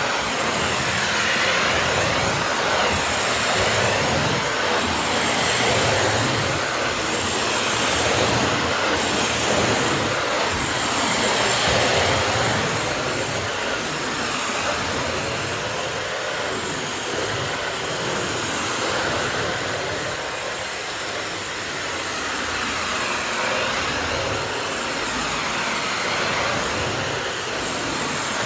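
Miele S194 Quick Step stick vacuum running on straight suction with no power head, picking up rice from the floor. It is a steady rushing noise that swells and eases slightly as the vacuum is moved about.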